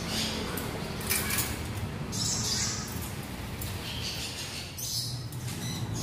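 Parrots squawking: several short, harsh calls one after another.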